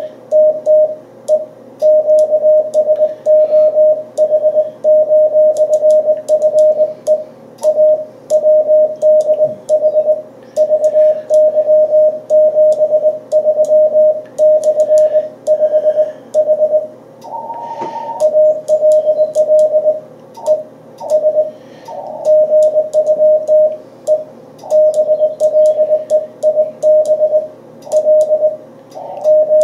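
Morse code (CW) from an amateur radio transceiver: a steady tone of about 600 Hz keyed on and off in dots and dashes, with faint clicks along with the keying. A brief higher tone cuts in a little past halfway.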